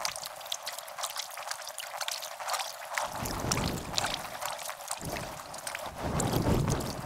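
Kayak paddles dipping and splashing in river water, with dripping and many small splashes and knocks, sped up by a time lapse.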